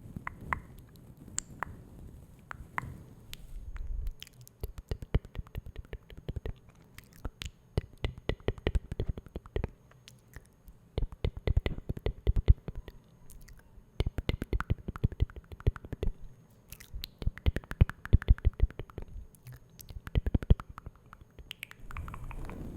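Close-miked ASMR mouth sounds: rapid wet clicks and smacks in bursts of a few seconds, with short pauses between them. A soft, low rustle fills the first few seconds before the clicking starts.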